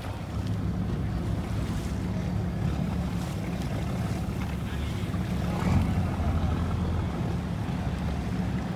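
Steady low drone of a boat's engine, with wind on the microphone and water noise; a brief louder rush of noise about six seconds in.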